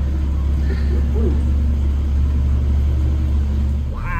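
Steady low engine rumble of a Jeep-drawn cave tour tram rolling along, easing off about four seconds in.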